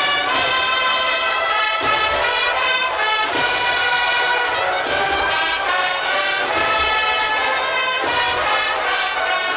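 Agrupación musical, a Spanish Holy Week brass-and-drum band, playing a procession march: brass holding full chords over drum strokes.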